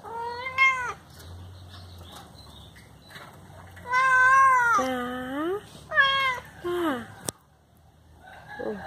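Domestic cat meowing several times: one meow at the start, a long drawn-out meow about four seconds in, and two short meows around six to seven seconds in, followed by a single sharp click.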